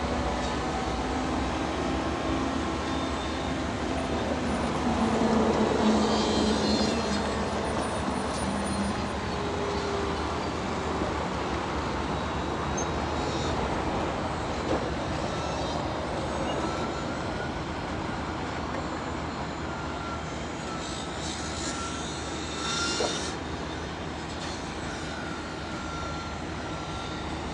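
Steady engine noise of construction machinery running, with a droning tone that is loudest about five to seven seconds in and a few brief knocks.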